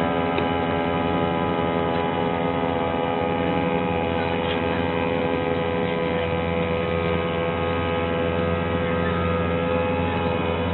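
Small grass-cutter engine, modified to drive a fishing canoe's propeller, running at a steady speed with an even, unchanging pitch.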